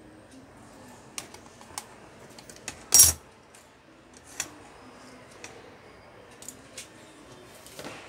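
Scattered small clicks and taps of a soldering iron, its metal stand and wire being handled on a workbench, with one much louder knock about three seconds in.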